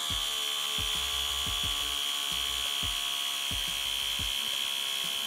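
Carywon cordless portable air compressor switching on and running steadily with a high whine while pumping air into a basketball. A low thump repeats about twice a second underneath.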